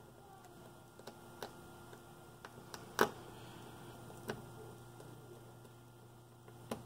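Scattered light clicks and taps from handling a smartphone and small repair tools, about seven in all, the sharpest about three seconds in, over a faint steady hum.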